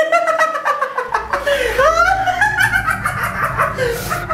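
A man laughing maniacally: a long run of rapid laughs whose pitch swoops up and down.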